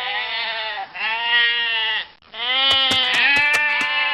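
Livestock bleating: three long wavering calls, the third the longest, with a few sharp clicks during it.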